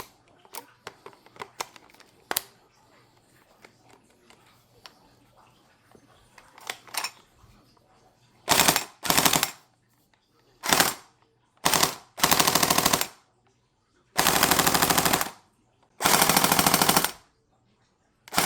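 AK-47 electric-blowback gel blaster: a series of sharp clicks and rattles from handling and reloading, then about eight full-auto bursts of rapid mechanical firing, each half a second to a second long.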